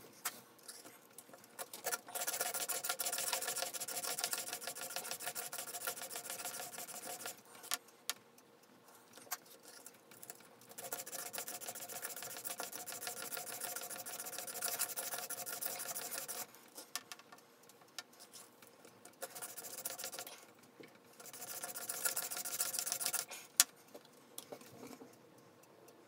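A chisel's bevel rubbed back and forth on the sharpening stone of an MPower FastTrack Mk2 guided sharpener, giving a steady gritty scraping in four long spells with short pauses between them, as the old chisel is ground toward its honing angle.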